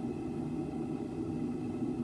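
Steady low mechanical drone, even throughout with no hammer blows or other sudden sounds.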